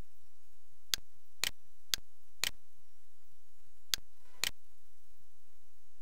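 Six sharp computer mouse clicks: four evenly spaced half a second apart, then a pause, then two more.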